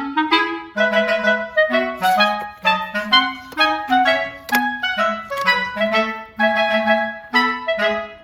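Background instrumental music: a melody of short, separate notes played at an even pace.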